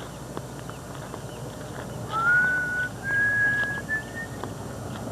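A person whistling a slow tune, a few long held notes stepping up in pitch, starting about two seconds in. Faint scattered ticks sound underneath.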